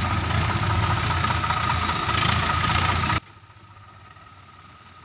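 Diesel engines of a Swaraj 744 FE tractor and a JCB 3DX backhoe loader running steadily close by; about three seconds in the sound drops suddenly to a faint steady background.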